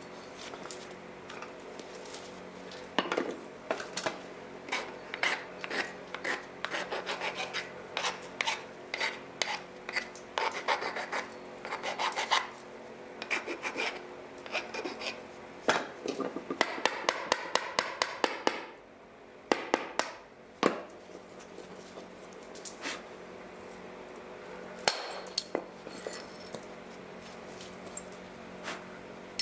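Flint dagger being knapped by hand: bursts of quick rasping, scraping strokes on the flint, broken by a few sharp single clicks.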